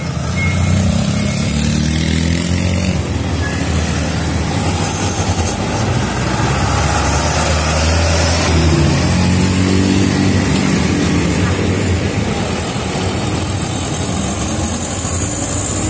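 Mitsubishi Canter light truck's diesel engine accelerating along the road, its pitch rising as it pulls away, then rising again as more trucks pass close by, over steady traffic noise. The sound cuts off abruptly at the very end.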